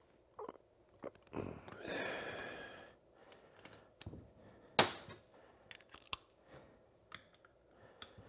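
Hand work on a motorcycle brake caliper and its hardware: scattered, irregular metal clicks and clinks. A short rasping sound comes about a second and a half in, and one sharp, loud click just before the five-second mark is the loudest thing.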